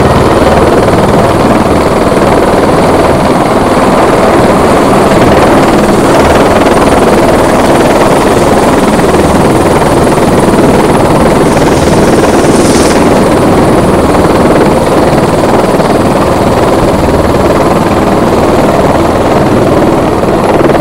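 Eurocopter AS350 B3 Écureuil single-turbine helicopter hovering at close range, its rotor and turbine loud and steady, while it fills its firefighting water bucket.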